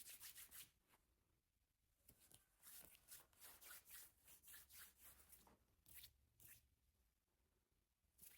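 Faint rustling: short clusters of crackly rubbing sounds over near silence, in a few separate bursts.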